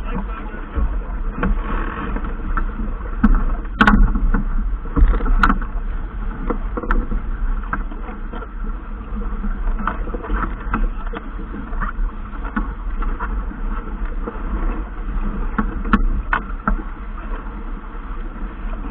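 Steady wind and water noise aboard a racing sailing yacht under way, with a few scattered sharp clicks and knocks.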